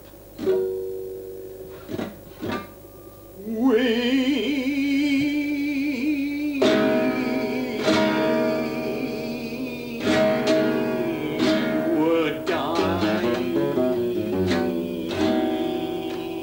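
Acoustic guitar playing, a few single plucked notes at first, then strummed chords, with a man singing long, wavering held notes over it from a few seconds in.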